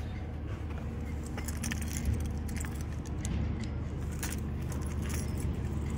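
Metal wrench clinking and clicking against bicycle parts as the wheel is worked loose: a scatter of light metallic clicks over a steady low rumble.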